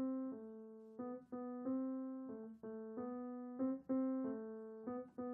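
Solo acoustic piano playing a slow, soft single-line melody in the middle register, each note struck and left to decay.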